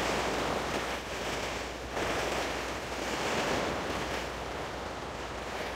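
Sea waves washing against the rocks of a breakwater: a steady rushing hiss that swells and eases every second or two.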